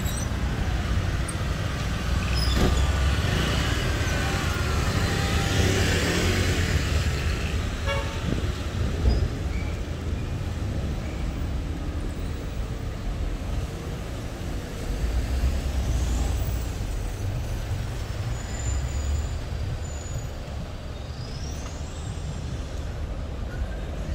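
City street traffic: car and motor scooter engines passing close, loudest in the first several seconds, over a steady low rumble of traffic.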